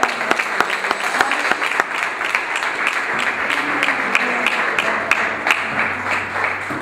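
Church congregation applauding, many hands clapping densely, easing off a little toward the end.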